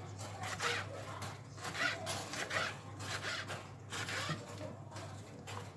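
Repeated short rasping, scraping strokes, roughly two a second, over a steady low hum.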